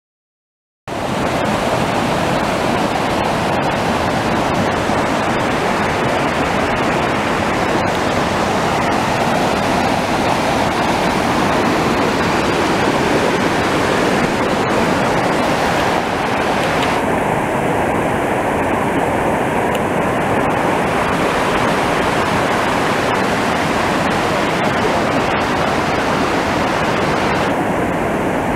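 Small mountain creek rushing over rocks and fallen logs: a steady, loud water noise that starts abruptly about a second in.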